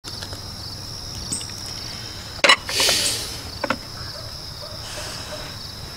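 Subway car ambience: a steady high-pitched whine, a sharp clunk about two and a half seconds in followed by a short rush of noise, and a few lighter clicks after it.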